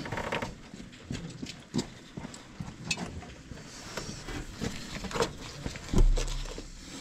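Irregular clinks and knocks of hand tools and metal parts, with a heavy thump about six seconds in.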